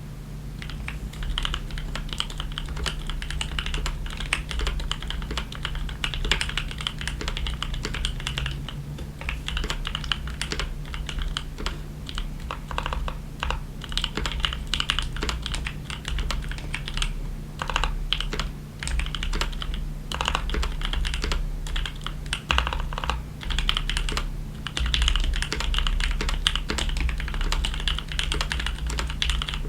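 Continuous fast typing on a mechanical keyboard with factory-lubed Gateron Oil King linear switches, a polycarbonate plate and clear ABS keycaps: a dense, unbroken run of keystrokes.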